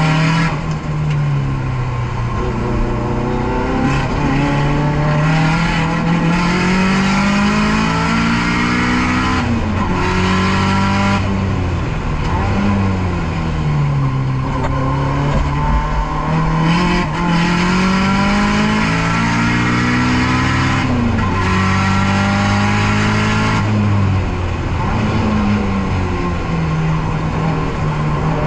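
Nissan S13's turbocharged SR20DET four-cylinder driven hard on a circuit. Its pitch climbs through the gears with short breaks at each shift, then drops away under braking and downshifts, several times over.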